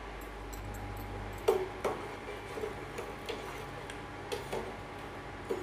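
Metal ladle clinking and knocking against the sides of a steel pot while stirring crushed horse gram and moong dal into water, about six irregular clinks over a low steady hum.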